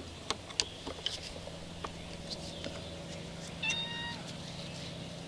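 Scattered light clicks of a screwdriver working the carburetor linkage screws over a low steady hum. About three and a half seconds in there is a single short, steady high-pitched call lasting about half a second.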